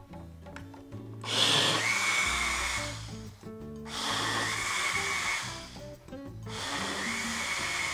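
Countertop glass-jar blender running in three pulses of about two seconds each, the motor whine rising as each pulse starts, churning a thick corn-flour, egg and sweet-corn batter. Background music plays underneath.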